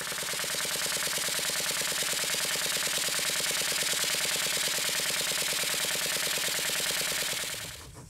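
Model steam engine running steadily, its rapid, even beat of exhaust and valve clicks over a constant hiss of steam and burner, fading out near the end.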